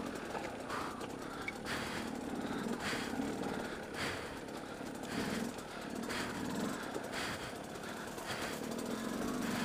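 Dirt bike engine running at low revs, the throttle opened and eased off every second or so as the bike picks over rough rocky ground, with occasional knocks from the jolts.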